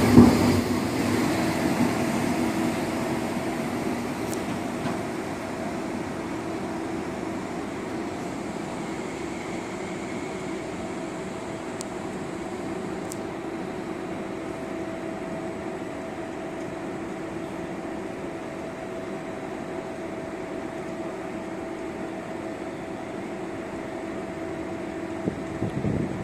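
A Frecciarossa 1000 high-speed train pulling away, its rail noise fading over the first several seconds. It leaves a steady fan-like hum with a low drone.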